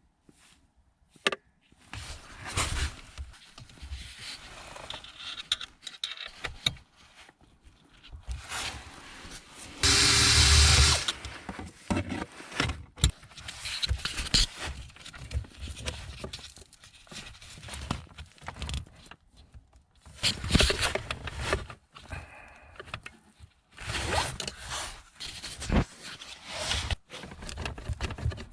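Hand work on a car's steering column: scattered clicks, knocks and rattles of tools and parts. About ten seconds in, a small electric motor or power tool whirs briefly.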